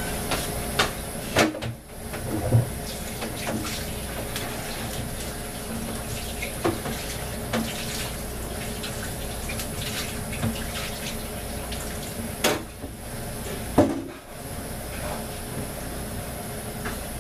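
Kitchen tap running steadily while cut potato pieces are rinsed, with a few sharp knocks, two near the start and two past the middle.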